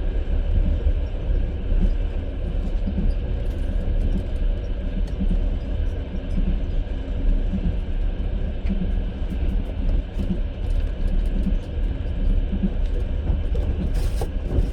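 Moving passenger train heard from inside the carriage: a steady low rumble of the wheels running on the rails.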